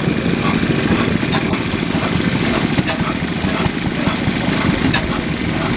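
Blackstone 7 hp paraffin oil engine running steadily: a low rumble with sharp clicks about twice a second.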